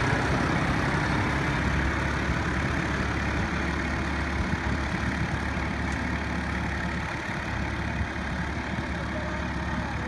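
TAFE 45 DI tractor's diesel engine running steadily as the tractor pulls away, growing slowly fainter.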